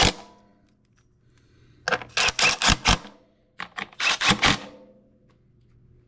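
Hand ratchet clicking in two quick bursts, a second or so each, as nuts are run down to hold the carburetor on a Honda GX240 engine.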